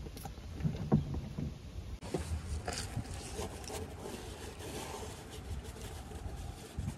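A few knocks in the first two seconds. After that, a cloth shop towel rubs and scratches as it wipes the oil filter mounting surface on the engine block.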